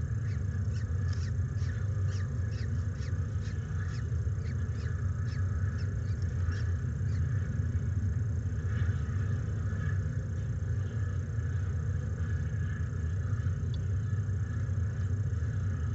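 Short, faint, high chirps from the peregrine falcon nest box, a few a second and thinning out about halfway through, over a steady low rumble.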